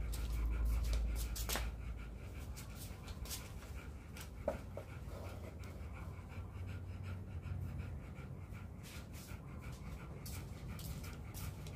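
A dog panting close by, with scattered short clicks and a low rumble over the first couple of seconds.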